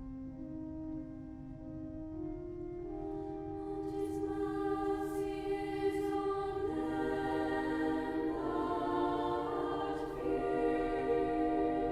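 Choir singing over held accompanying chords. The voices come in about three seconds in and build, growing fuller and louder.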